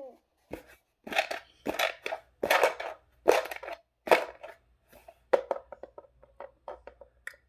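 Hard pink plastic toy piece handled and rubbed close to the microphone: a run of scraping, rustling bursts about every half second or so, then lighter clicks and taps toward the end.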